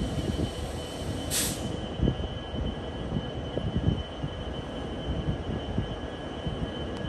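EMD GP60 diesel locomotive rolling slowly, with a steady low rumble and irregular clunks from the wheels and running gear. A short hiss comes about a second and a half in.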